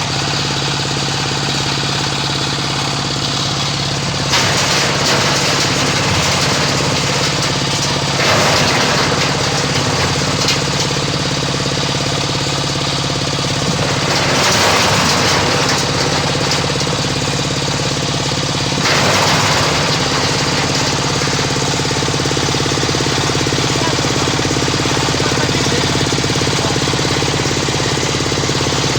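Oil palm loose-fruit thresher running steadily under its engine during a test run. Four times it swells into a louder, rattling rush for a second or two.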